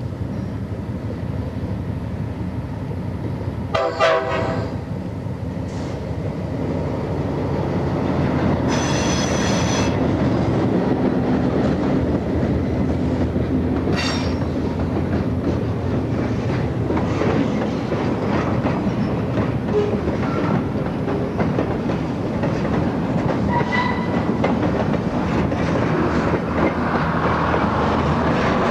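A freight train passes behind an Alco Century diesel locomotive: the engine rumbles steadily, then boxcars roll past with a clickety-clack of wheels over rail joints. A brief horn blast sounds about four seconds in, and a short high-pitched wheel squeal comes at about nine seconds.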